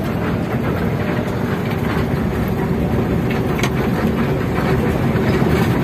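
Mercedes-Benz OH 1521 coach's rear-mounted diesel engine running steadily as the bus drives, heard from inside the passenger cabin as an even, low rumble.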